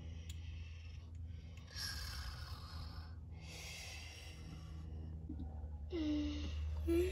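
A person breathing slowly and heavily, two long breaths like a sleeper's, over a steady low hum; near the end a short hummed voice sound.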